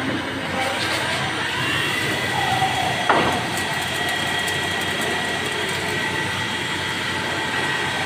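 CNC turning lathe running: a steady whine rises in pitch about a second in and then holds, as the spindle comes up to speed, over a constant machine din. One sharp knock sounds about three seconds in.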